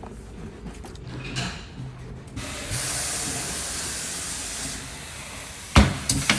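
A steady hiss of compressed air starts a little over two seconds in and fades, then a heavy thump and a couple of sharp clanks come near the end as a wheel and tire are handled on the shop equipment.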